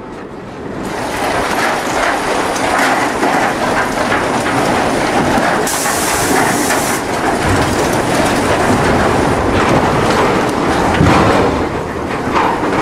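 Sawmill log-handling conveyors running: steady machinery noise with irregular clattering and knocking as logs ride over steel conveyors, rising about a second in.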